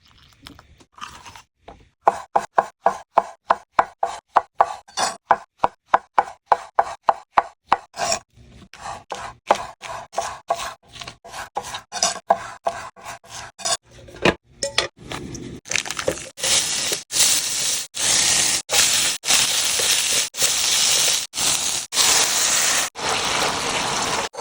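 A knife chopping quickly on a cutting board, about four or five strokes a second. From about fifteen seconds in it gives way to a steady loud sizzle of food frying in a hot pan.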